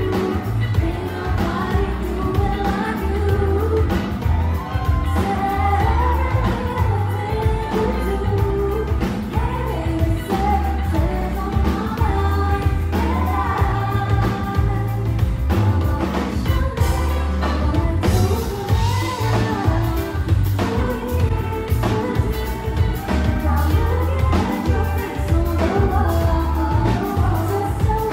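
A woman singing a pop song into a microphone, backed by a live band with electric guitar and drums over a heavy bass low end.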